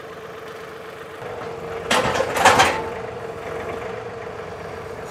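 Compact tractor engine running at idle with a steady whine, and a loud scraping crunch lasting under a second about two seconds in as a large landscape rock is shifted into place.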